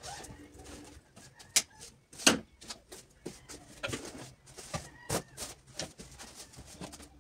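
Clothes hangers clicking and knocking against the wardrobe rail while garments rustle as they are moved and lifted off; the sharpest knocks come about one and a half and two seconds in. A bird calls faintly in the background.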